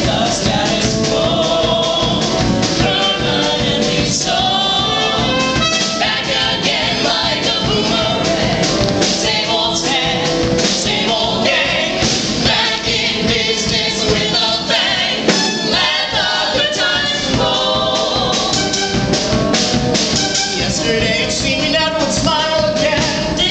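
A small ensemble of male and female voices singing a Broadway show tune together, with musical accompaniment.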